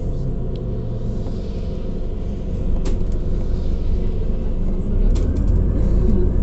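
Inside a Scania Citywide 12LF CNG city bus under way: the gas engine's low rumble with road noise, growing louder about five seconds in. A few short clicks sound over it.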